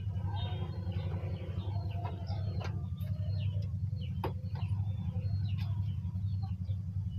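Birds chirping in short, scattered calls in the background, over a steady low hum, with a few sharp clicks.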